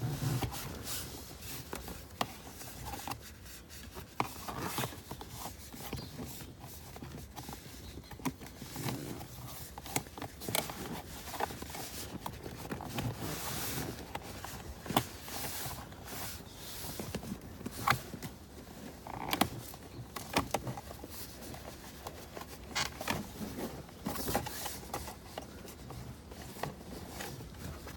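Irregular scraping, rustling and sharp plastic clicks of hands working a cable-tied bundle of RCA cables through a car's plastic interior trim panels.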